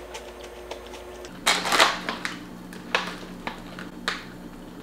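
Plastic cereal pouch crinkling as it is picked up and handled: a loud rustle about a second and a half in, then a few shorter crackles.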